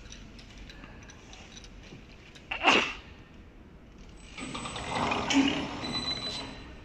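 Hands working a napkin tissue folding machine while the tissue paper is threaded through it. There is one short, sharp noise about two and a half seconds in, then about two seconds of rustling and light clattering.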